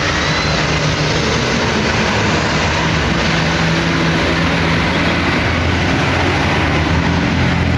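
Loud, steady road noise from heavy vehicles: a low engine hum under a rushing wash of tyre and wind noise, with no horn tune sounding.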